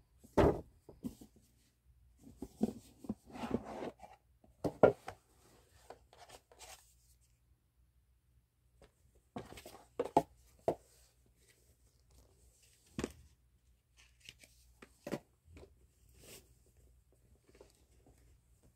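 Unboxing handling noise: a rigid cardboard gift box and a cloth drawstring dust bag being handled, with intermittent rustling, scraping and a few sharper knocks, the loudest near the start and about five seconds in.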